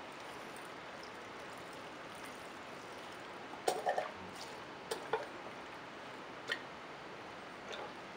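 Nitro glow fuel being squeezed from a plastic fuel bottle into an RC truck's fuel tank: faint pouring, with a few short, sharp gurgles and bottle sounds about 4, 5 and 6.5 seconds in.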